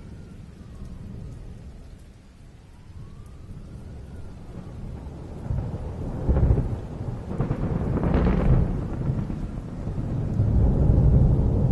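Thunderstorm: low rolling thunder over steady rain. The rumble swells about halfway through into two louder peals, then builds again near the end.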